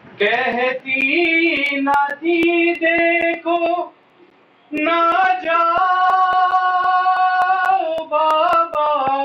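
A single voice chanting a noha, a mourning lament, without instruments, in long held phrases with a short pause about four seconds in. Sharp slaps keep a steady beat of about three a second under the chant.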